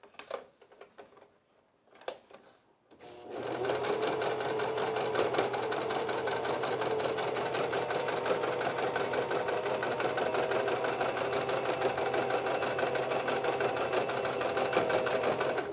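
Singer Tradition electric sewing machine stitching through layered cotton fabric, sewing the mask's filter-pouch opening shut. After a few light clicks of fabric handling, the machine starts about three seconds in and runs at a steady speed, with the needle strokes in a fast even rhythm, then stops near the end.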